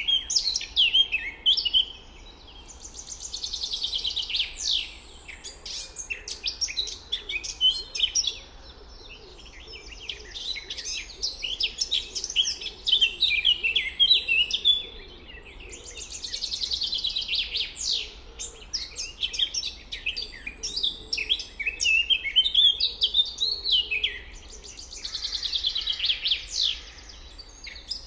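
Several songbirds singing and chirping together, with one bird's rapid trilled song coming back three times.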